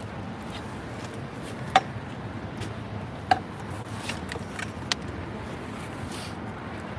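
A few short, sharp knocks and clicks as gear is shifted and set down by hand, the two loudest about two and three and a half seconds in, over a steady low background rumble.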